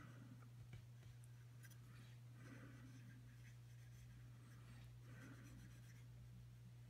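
Near silence over a steady low hum, with faint scratchy rubbing of a cotton swab spreading liquid cement across a plastic model hull, a little stronger about two and a half seconds in and again about five seconds in.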